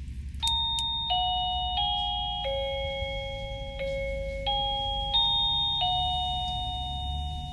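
Wireless doorbell chime playing its electronic melody after its push button is pressed: a tune of about eight ringing notes, each note overlapping the last as it fades.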